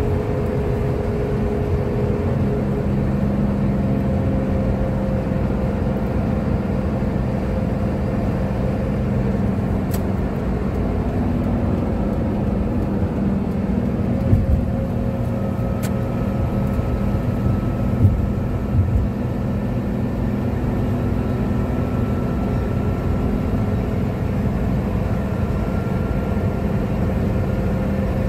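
Cabin noise of a Toyota Coaster minibus cruising at highway speed: a steady engine drone and road noise, with faint steady whining tones. A couple of light knocks come about halfway through.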